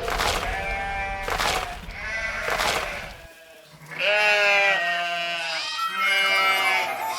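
Livestock bleating: a run of short bleats over a low rumble that stops a little after three seconds, then longer, steadier bleats from about four seconds in.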